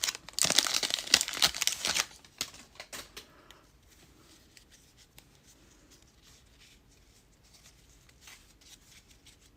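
Foil wrapper of a trading-card pack crinkling and tearing open for about two seconds, then a few fainter rustles and soft ticks of cards being handled.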